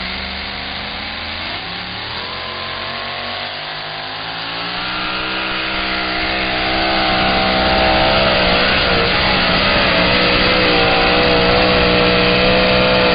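Supercharged, alcohol-fuelled two-wheel-drive pulling truck engine at full throttle, dragging the weight-transfer sled. Its pitch climbs steadily over the first several seconds, then holds high and wavers while getting louder, and cuts off suddenly at the end.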